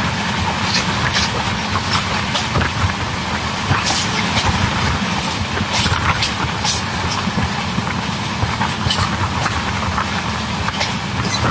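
LHB passenger coach of an express train running at speed, heard from its open doorway: a steady rumble of wheels on the track with wind buffeting the microphone and scattered short, sharp ticks.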